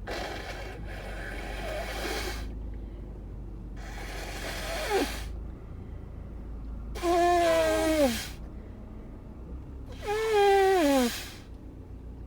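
A woman with a cold or allergies sneezing: four outbursts of breath a few seconds apart, the last two the loudest, voiced, with the pitch falling away at the end of each.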